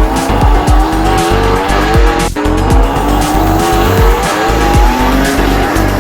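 Race-car engine sound effect revving and climbing in pitch through several gear changes, over electronic beat music with a steady kick drum.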